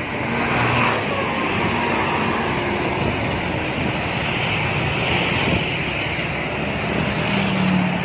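A coach bus driving past and away, its engine and tyres making a steady traffic noise.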